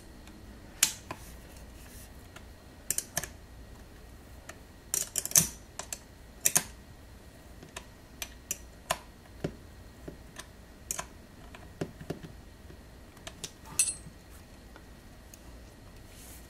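Irregular light clicks and taps of small metal and plastic parts and a small wrench being handled as a FotoPro tripod's leg-lock hinge is bolted back together. About a dozen separate clicks, with a cluster about five seconds in.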